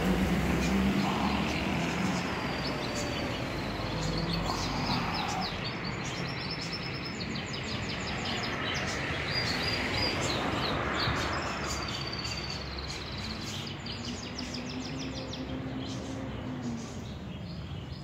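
Street ambience: a steady wash of traffic noise with small birds chirping rapidly and repeatedly in the street trees, the chirping thinning out in the last few seconds.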